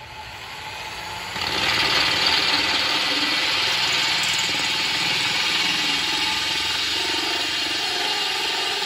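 Cordless drill spinning a diamond hole saw into mirror glass, wet-cutting in a pool of coolant. It makes a steady whirring with a hissing grind that gets louder about a second and a half in, as the bit bites into the glass.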